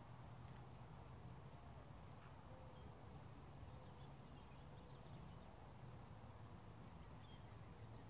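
Near silence: a faint, steady cricket trill over a low hum.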